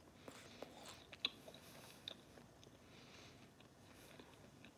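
Faint close-up chewing: soft, wet mouth clicks and smacks, the sharpest about a second in.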